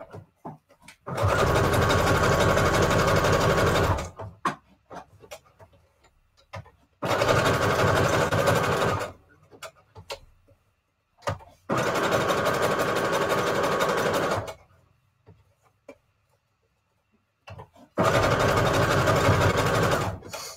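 Electric sewing machine stitching through paper in four runs of two to three seconds each, stopping between runs while the piece is turned to sew around it. Light clicks fill the pauses.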